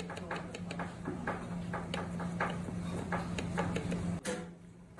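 Kitchen knife tapping a plastic cutting board as it thinly slices something small: a steady run of chopping taps, about three a second, that cuts off suddenly near the end.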